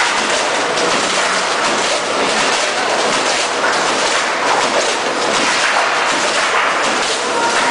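Rotary-shear cut-to-length line running, thin steel sheet being fed through and cut to length by the servo-driven rotary shear: a steady, loud machine clatter.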